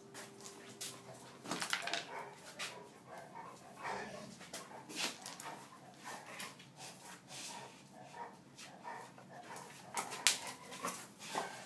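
A dog barking in short, irregular bursts, with scattered clicks and knocks from its scuffling on a tiled floor.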